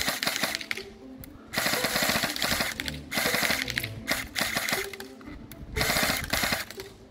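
Budget H&K 416 airsoft electric rifle (AEG) firing on full auto: four short bursts of fast mechanical clatter, each under about a second, over background music.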